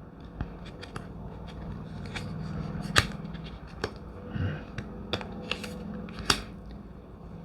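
Glossy tarot cards being handled on a table: scattered sharp clicks and taps, about eight over several seconds, the loudest about three seconds in, over a faint steady hum.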